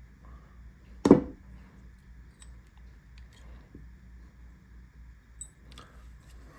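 Small metal clicks and clinks as the parts of a Remington New Model Army cap-and-ball revolver are handled during disassembly, with one sharp, louder knock about a second in and a few faint ticks after it.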